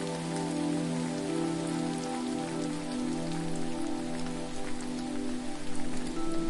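Steady pattering water noise with fine drop-like ticks, heard as rain-like spray, over sustained low humming tones that shift every couple of seconds.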